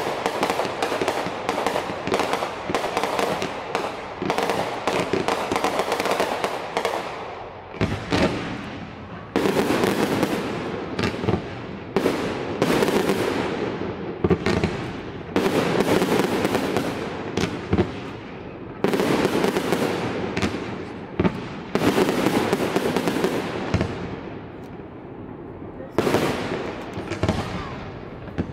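Fireworks display: a rapid, continuous barrage of sharp bangs and crackling from aerial shells and ground fountains, thinning briefly about eight seconds in and again near the end before picking back up.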